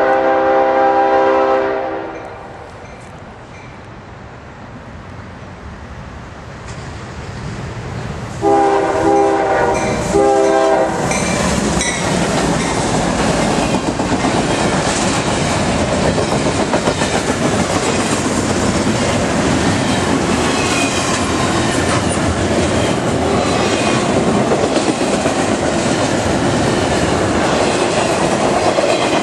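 CSX intermodal freight train's locomotive air horn sounding several notes at once: a blast that cuts off about two seconds in, then the train's rumble building, then two more blasts about a third of the way through, the second shorter. The train then passes close and loud, its wheels clacking steadily over the rail joints for the rest.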